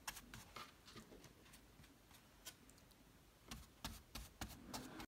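Large flat paintbrush dabbing short strokes of acrylic paint onto a stretched canvas: faint, irregular light taps and brushing scratches, thinning out in the middle and bunching again near the end before the sound cuts off suddenly.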